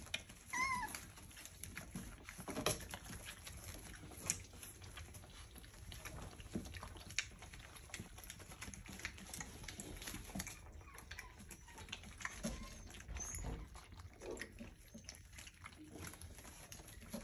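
Cockapoo puppies moving about, with faint scattered scuffling and tapping and one short high squeak, like a puppy's whine, about a second in.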